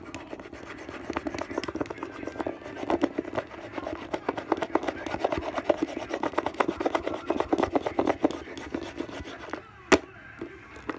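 Plastic toy animal figurines scraped and rapidly knocked against a wooden tabletop in a play fight: a dense run of clicks and rubbing that stops shortly before a single sharp knock near the end.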